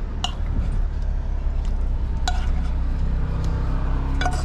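Wind buffeting the microphone as a steady low rumble, with three sharp metal clinks of a utensil against a cooking pot: one near the start, one about halfway and one near the end.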